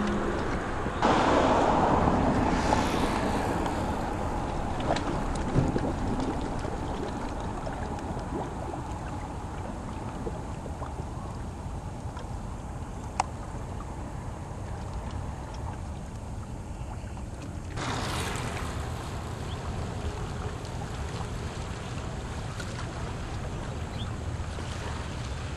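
Wind buffeting the microphone over quiet outdoor ambience, a steady low rumble with louder swells of noise about a second in and again about two-thirds of the way through, and one sharp click near the middle.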